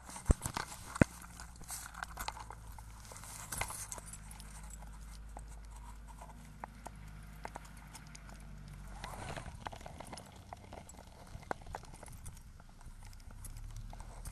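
Footsteps on a hard lane surface with scattered sharp clicks, the loudest in the first second, over a steady low rumble.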